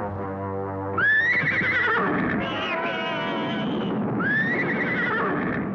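Cartoon horse whinnying twice, a loud wavering call that rises then falls, about a second in and again around four seconds in, after a brief brass music cue at the start.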